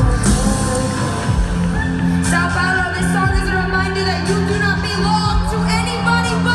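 Live pop music from a concert stage: a woman singing over a band with steady bass, recorded from within the arena crowd.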